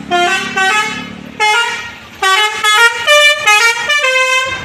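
Bus 'telolet' multi-tone horn of the basuri type playing a quick tune: about eight short horn notes, each at a different pitch.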